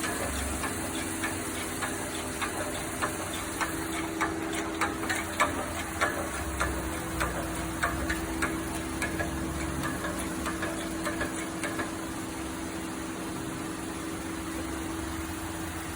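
GMC Denali 6.0L V8 engine running steadily, with sharp irregular clicks over it that stop about three-quarters of the way through.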